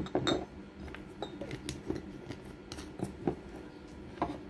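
Scattered light clicks and taps at irregular intervals, as dishes and utensils are handled at a table.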